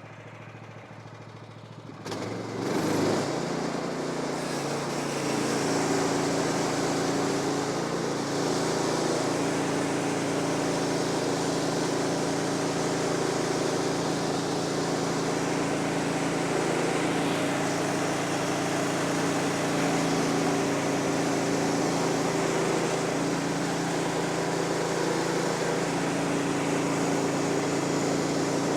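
Portable sawmill's gasoline engine, running low and then sped up sharply about two seconds in, after which it runs steadily at high speed.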